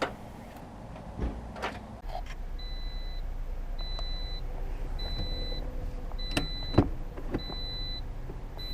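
Electronic beeping from the car: a high beep about half a second long, repeating a little more often than once a second over a low hum, starting a few seconds in, with a couple of sharp clicks near the end.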